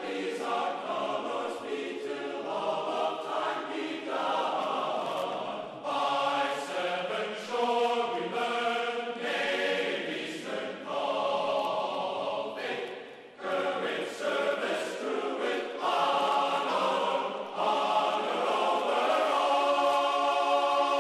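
Background music of choir-like voices singing sustained chords that change every second or two.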